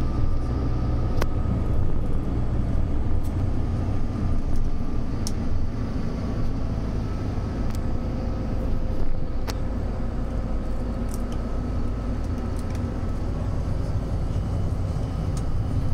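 Steady engine and road rumble inside a moving bus, with a few faint clicks and rattles from the cabin.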